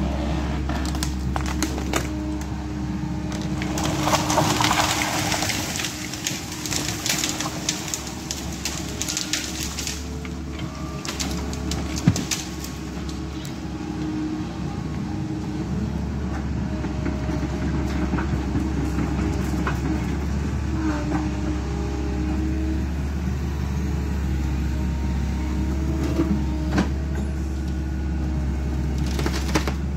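Kobelco SK135SR tracked excavator's engine and hydraulics running steadily while its Woodcracker felling shear handles trees; from about four to ten seconds in, wood and branches crack and snap in a dense series, with a single sharp knock a couple of seconds later.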